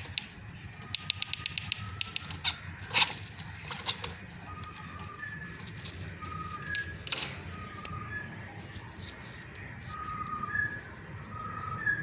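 A quick run of sharp clicks, then several louder knocks, sounding like a small bird fluttering its wings. Short faint bird chirps repeat about once a second through the second half.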